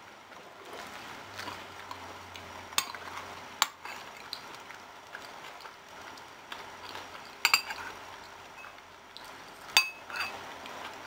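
Eating utensil clinking and scraping against a dish while eating, with four sharp clinks spread through, the last two ringing briefly.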